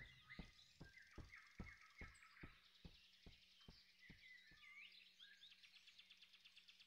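Near silence: faint forest ambience with soft bird chirps, and a row of quiet, evenly spaced ticks, about two and a half a second, that fade out about halfway through.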